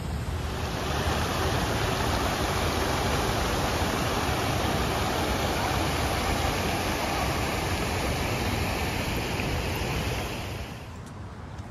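Large outdoor fountain: many water jets and a tall spray splashing into a pool, making a steady rushing sound that stops abruptly near the end.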